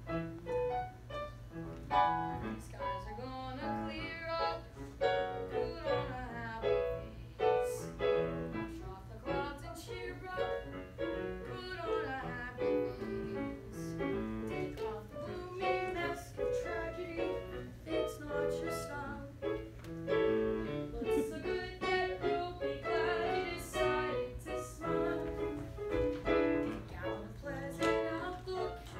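Show tune sung by a stage singer with piano accompaniment, over a steady low hum.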